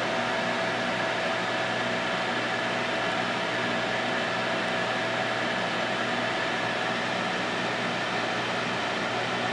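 Fans running steadily in an indoor grow tent: a constant airy whir with a low, even hum under it.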